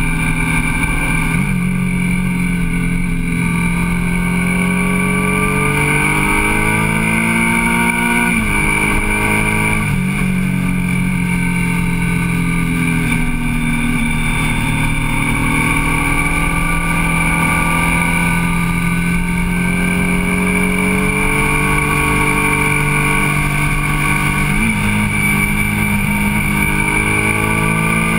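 Motorcycle engine heard onboard while riding. The pitch climbs under throttle and drops sharply several times as the rider shifts and rolls off through the bends, with steady wind and road rush underneath.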